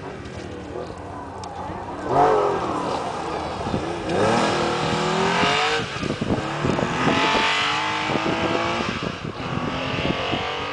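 Classic Porsche 911 rally car's air-cooled flat-six engine revving hard through a gravel corner and accelerating away, its pitch climbing through the gears. The loudest surge comes about two seconds in, with short crackles later on.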